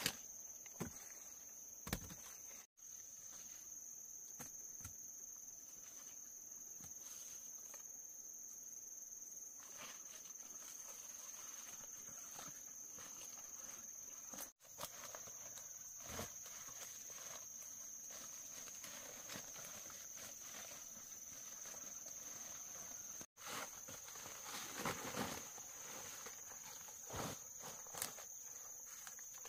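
Insects trilling in one steady high note, with scattered footsteps and light knocks and rustles, busiest about twenty-five seconds in.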